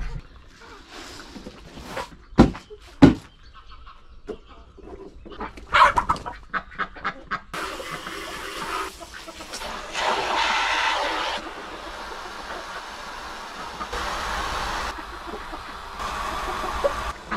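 Chickens clucking and stirring, with two sharp knocks a few seconds in. From about seven and a half seconds in comes a steady rush of water poured into a poultry drinker, in stretches that start and stop abruptly.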